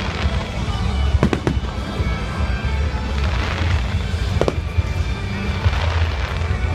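Fireworks going off: sharp bangs, two in quick succession about a second in and another a little past halfway, with crackling showers between, over loud show music with a heavy bass.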